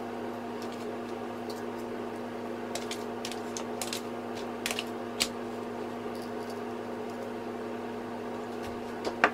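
A steady hum, with a scatter of light clicks and taps from a salt shaker and from hands turning raw chicken breasts on a metal baking tray. The taps come mostly a few seconds in, with one sharper tap near the end.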